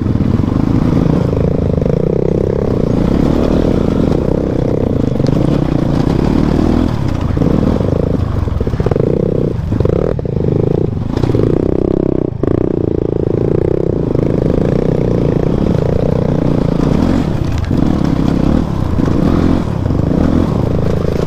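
Motorcycle engine running while riding a rough dirt track, with clatter from the bike; the sound dips briefly a few times near the middle.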